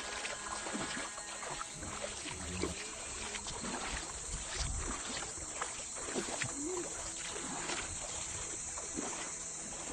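Calm, shallow sea water lapping gently at the shore: small irregular trickles and splashes over a steady hiss.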